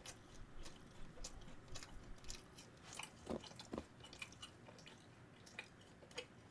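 Faint chewing of a fried cheese ball, heard through a close microphone: soft, wet mouth clicks and crackles, with two brief squeaks about halfway through.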